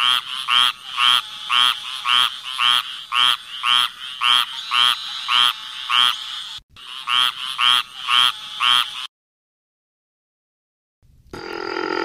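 Recorded squirrel treefrog calls: a raspy, quacking note repeated about twice a second, with a brief break, stopping about nine seconds in. Near the end a different, steady river frog call starts.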